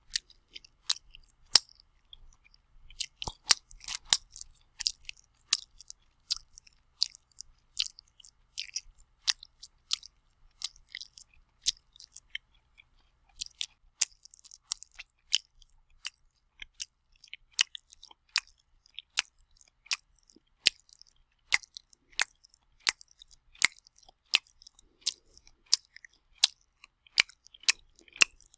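Wet, sloppy open-mouthed chewing and lip smacking: a steady run of sharp, moist smacks, about one or two a second.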